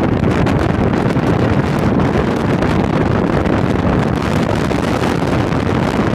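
Steady wind rush on the microphone and road noise from inside a moving car.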